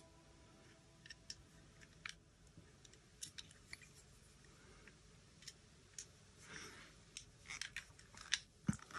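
Faint, scattered clicks and scrapes of hands handling a die-cast metal and plastic toy jet as its screws are fitted back in, with a sharper knock near the end.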